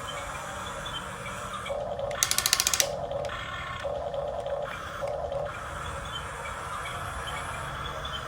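Radio-controlled model excavator's small electric motors and gears whirring in short bursts, with a quick run of loud clicks about two seconds in.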